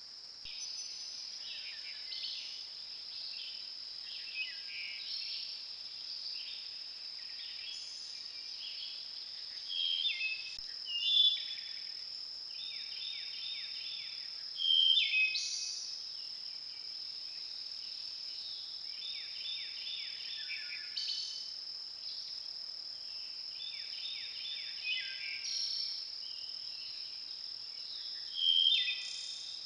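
Songbirds singing in the woods, many short repeated phrases falling in pitch, over a steady high-pitched whine; a few louder bursts of song stand out, the loudest about a third and a half of the way in and near the end.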